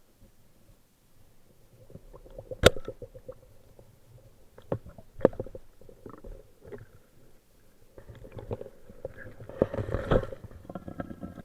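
Muffled underwater sound through a camera housing: a low rumble of water with sharp knocks and clicks, the loudest about two and a half seconds in and another about five seconds in. A denser stretch of bubbling noise comes near the end.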